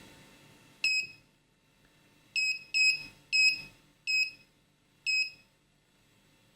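Six short electronic beeps from the Anet A8 3D printer's control-panel buzzer, one for each click of the menu knob, coming at an uneven pace with a pause between each.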